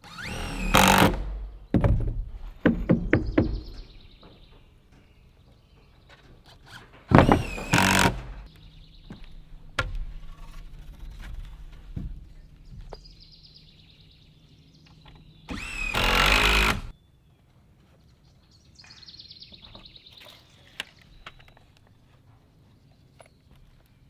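A power saw making three short cuts through framing lumber, each about a second long with a whine that wavers under load: one near the start, one about seven seconds in, and one about sixteen seconds in. A quick run of sharp knocks, like hammer blows on wood, follows the first cut.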